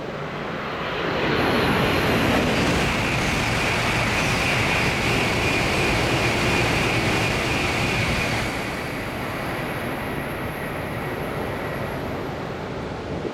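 E6 Komachi and E5 Hayabusa Shinkansen trains, coupled, passing through a station at high speed without stopping: a rush of air and rail noise with a steady high whine. It swells about a second in, stays loud for about seven seconds, then falls away.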